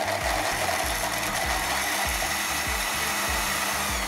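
Bosch blender running steadily at speed with a loud whir and a steady motor hum, puréeing fresh strawberries in its glass jar.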